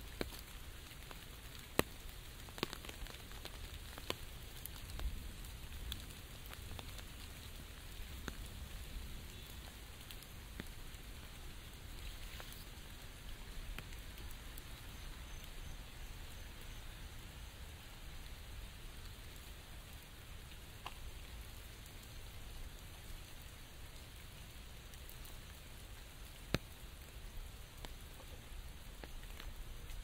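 Steady light rain hissing, with scattered single drops tapping sharply on an umbrella overhead; a few taps stand out loud, about two seconds in and again near the end.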